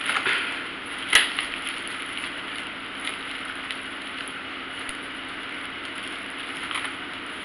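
Clear plastic oven bag crinkling and rustling as hands gather and twist its neck closed, with one sharp click about a second in.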